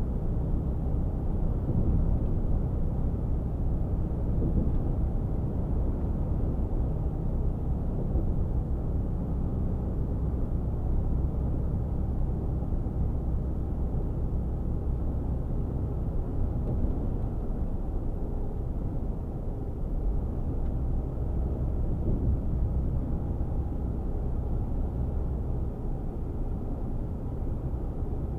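Mercedes-Benz Actros 1848 truck heard from inside its cab while cruising at about 90 km/h: a steady, low drone of engine and road noise.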